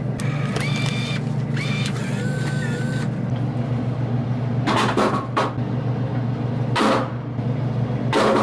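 Snack vending machine running with a steady low hum. Its bill acceptor whines as it pulls in dollar bills during the first few seconds. Later come three short rattling bursts as the machine dispenses items.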